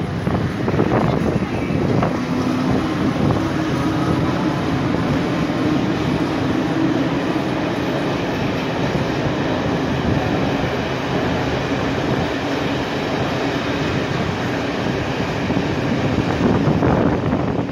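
Locomotive-hauled passenger train rolling past: a steady rumble of steel wheels on rail, with a few sharp clicks over the rail joints near the start and again near the end.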